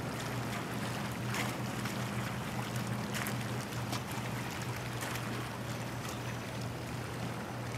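Wind and lapping water on open harbour water, with a steady low hum and a few faint clicks.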